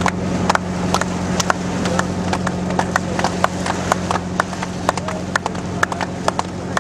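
A boat engine running with a steady low hum, with sharp, irregular clicks or knocks, several a second, over it.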